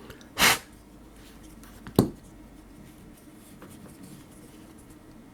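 Small parts of a folding knife being handled during disassembly: a brief rustle, then one sharp click about two seconds in, then a few faint light ticks.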